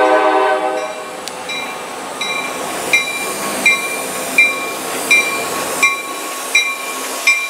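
CSX diesel freight locomotives passing close by at street-running speed. The horn chord cuts off about a second in, then a bell rings steadily, about one stroke every 0.7 s, over the rumble of the engines and wheels.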